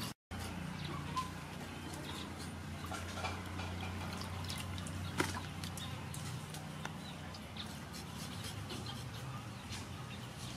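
Small knife scraping and cleaning pieces of fish in a metal basin of water, with light drips, small splashes and scattered clicks over a steady low hum.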